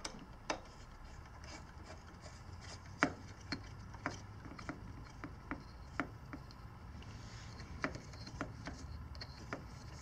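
Hex key turning the rear brake caliper's mounting bolts on a Sur Ron Light Bee: faint, irregular metallic clicks and ticks, roughly one every half second to second, as the key shifts in the bolt heads.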